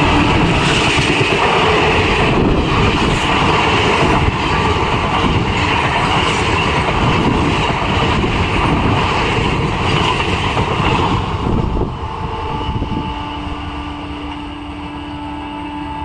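Passenger coaches of a diesel-hauled train rushing past at speed close by, their wheels and running gear making a loud steady rumble. About twelve seconds in the sound drops to a quieter, receding train, and a steady locomotive horn note sounds through the last few seconds.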